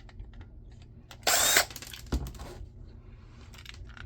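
Cordless drill-driver spinning in one short burst of about a third of a second, backing out a screw, followed by a few light clicks and taps of handling.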